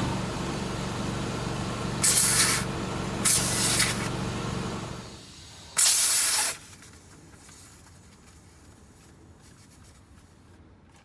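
Three short hissing sprays, about a second apart, as soapy water is sprayed onto a tire to look for a leak. Under the first two, an air compressor hums steadily, and it stops about five seconds in.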